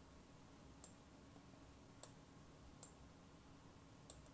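Computer mouse button clicks: four sharp single clicks roughly a second apart, over faint room hiss.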